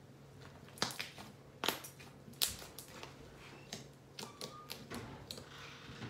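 Thick slime being squeezed and folded by hand, giving sharp clicks and pops: three loud ones about a second in, near two seconds and at about two and a half seconds, then softer crackles.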